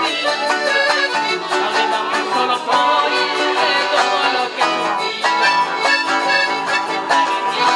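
Live band music led by a piano accordion, with an acoustic guitar strumming along.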